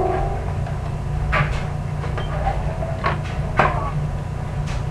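Kitchen clatter: four sharp knocks and clinks of utensils, dishes or cupboard doors, the loudest about three and a half seconds in, over a steady low hum.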